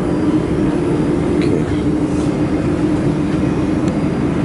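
Dust collection fan of a laser welding machine running steadily: a loud, even blower noise with a constant low hum.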